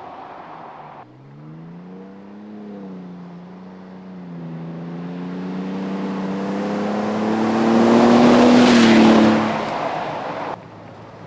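Toyota Tundra's twin-turbo V6 through a MagnaFlow cat-back exhaust, revving up early on and then pulling steadily, growing louder to a peak about nine seconds in as the truck comes by, then falling away and cutting off abruptly near the end. The exhaust gives a low, beefier tone that is not obnoxiously loud.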